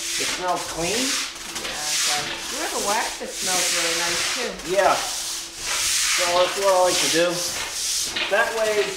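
Stiff-bristled push broom scrubbing a wet, soapy concrete floor in strokes about a second apart, each a coarse, hissing scrape.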